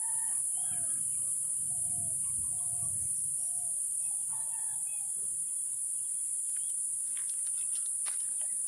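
Steady high-pitched insect drone from crickets or cicadas, with a chicken giving a run of short repeated clucking calls in the first few seconds.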